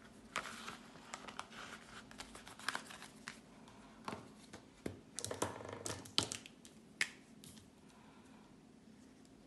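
Banknotes and paper cash envelopes rustling and crinkling as they are handled on a table, with a cluster of sharp clicks and taps about halfway through; the handling stops shortly before the end.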